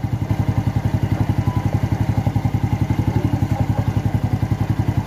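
Yamaha Mio Soulty scooter's single-cylinder four-stroke engine idling steadily, with an even beat of about ten pulses a second. Its carburetor idle speed has just been raised and the air-fuel mixture screw is being turned closed as part of carburetor tuning.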